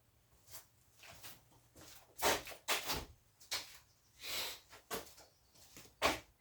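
Scrap electronics being handled and sorted: a run of irregular knocks and clatters as parts and wire are picked up and dropped, loudest about two to three seconds in, with a brief scraping rustle and a last knock near the end.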